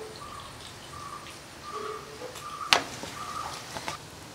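Chili-marinated chicken pieces frying in hot oil in a pan, a soft sizzle, while a bird calls in short repeated notes. One sharp click sounds a little past halfway.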